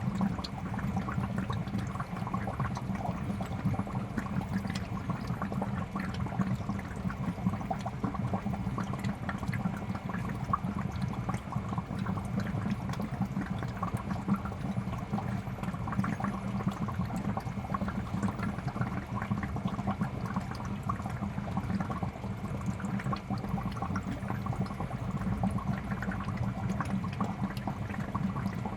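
Aquarium bubbling and splashing water with a steady low hum from its pump, continuous and even throughout.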